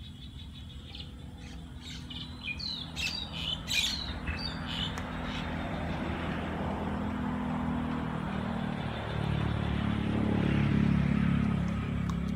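Small birds chirping, with a few sharp clicks, for a few seconds. Then a low rumble builds and is loudest near the end.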